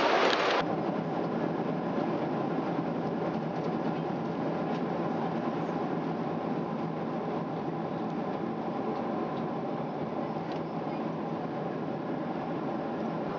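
Steady roar of a Boeing 777's engines and airflow heard inside the passenger cabin, with a few faint clicks, briefly louder in the first half-second.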